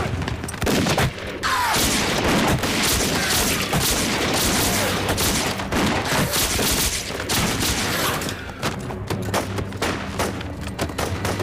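Battle gunfire: many guns firing at once, shots crowding over one another, with a quicker run of sharper separate shots in the last few seconds.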